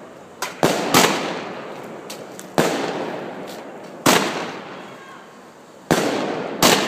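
Aerial fireworks bursting overhead: a series of loud bangs, one every second or two at irregular spacing, each followed by a rolling echo that fades away before the next.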